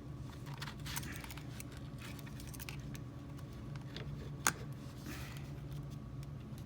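Light clicks and rattles of a power cable connector being handled and pushed into its socket, with one sharp click about four and a half seconds in, over a steady low hum.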